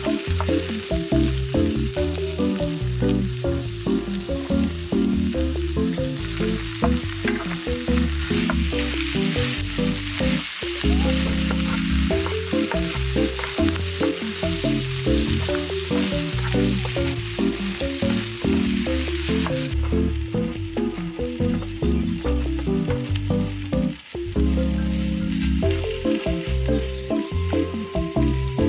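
Food sizzling and frying in a pan with occasional stirring, under background music with a stepping bass line.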